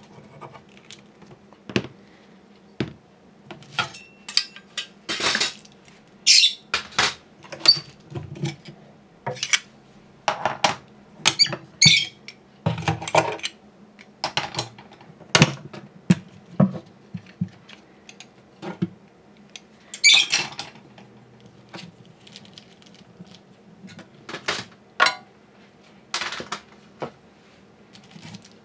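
Wooden cam clamps being loosened and lifted off a guitar top and set down: a string of irregular clicks, knocks and clattering, with a few squeaks.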